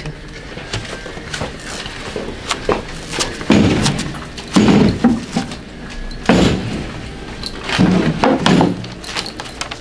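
Wooden soap molds lined with paper and plastic knocking and clattering as they are handled and set down, with rustling. A string of knocks comes in the second half, one every second or so.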